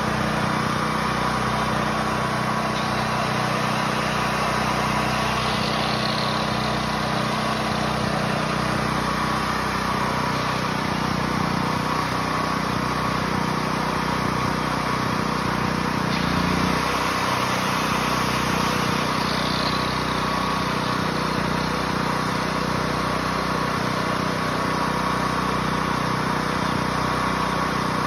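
Portable generator engine running steadily at constant speed.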